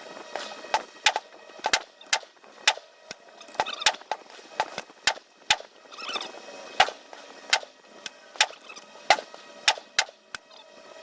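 Gunshots on a shooting range: sharp reports at irregular intervals, roughly two a second, some loud and some fainter.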